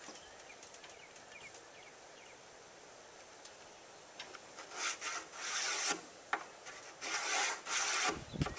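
Wood being scraped or rasped: several short, irregular rasping strokes start about halfway through, each under a second long.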